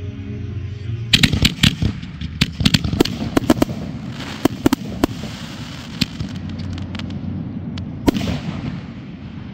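Fireworks going off. A rapid string of sharp bangs and crackles begins about a second in, then thins to scattered single reports, with one more loud bang near the end.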